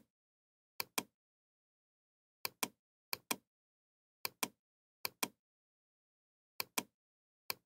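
Computer mouse clicking in quick pairs, each pair a fraction of a second apart, about seven pairs at uneven intervals, sharp and dry, with dead silence between them.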